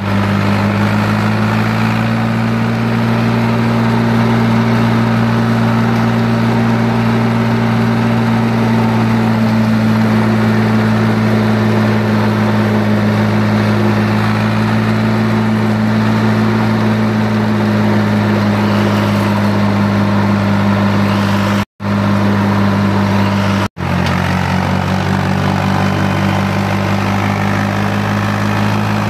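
Fiat 500 Special tractor's diesel engine running steadily under way, heard from the driver's seat close to the vertical exhaust stack. The sound cuts out for an instant twice near the end.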